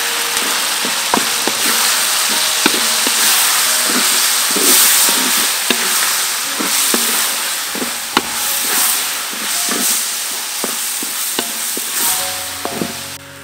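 Chopped eggplant and minced meat sizzling in a hot metal wok while a wooden spatula stirs and scrapes them, with frequent sharp clicks of the spatula against the wok.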